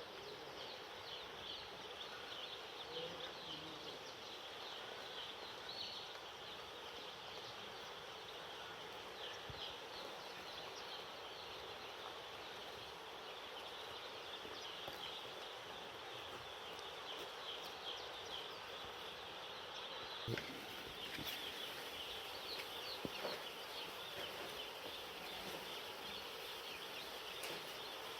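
A brood of day-old broiler chicks peeping continuously, many short high falling chirps overlapping, with a couple of faint knocks about two-thirds of the way through.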